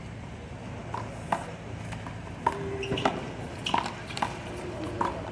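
A one-wall handball rally: a small rubber handball slapped by open hands, smacking the wall and bouncing off the court, about nine sharp smacks at uneven intervals.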